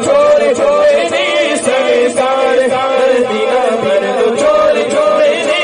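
Male voice singing a naat, an Urdu devotional chant, through a microphone, the melody rising and falling without a break.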